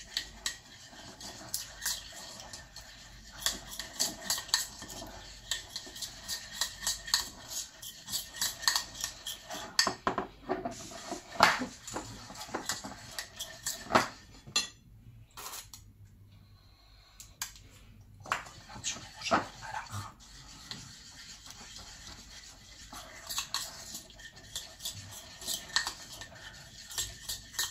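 Small metal spoon stirring icing sugar glaze with food colouring in a porcelain plate, a run of light, irregular clinks and scrapes against the china, easing off for a few seconds about halfway through.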